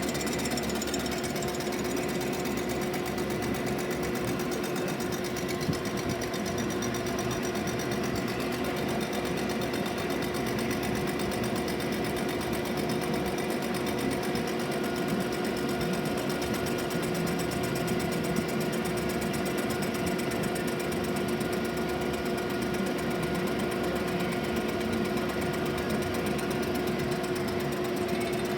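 DeVlieg boring mill running steadily while it machines a Chrysler cast-iron exhaust manifold: a constant machine hum with a dense, rapid rattle from the cut, unchanging throughout.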